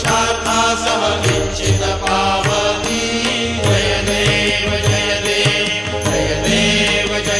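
Hindu devotional chanting sung over instrumental music, with a steady low drone and percussion.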